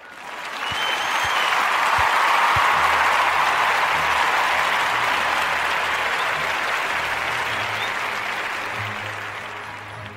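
Recorded applause that swells in over the first two seconds and slowly fades away, with low steady music notes starting under it a little after two seconds in.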